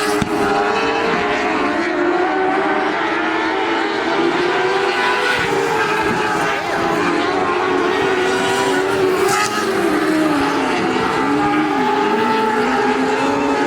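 A field of Lightning Sprint race cars running at racing speed, several motorcycle-type four-cylinder engines at high revs, their pitches rising and falling together as the cars go around the track.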